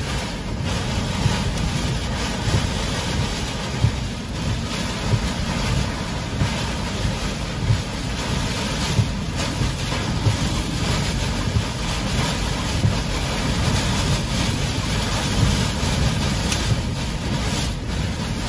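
Derecho winds buffeting a car, with wind-driven rain pelting the body and windshield: a loud, steady rushing noise with gusts and a few sharp taps.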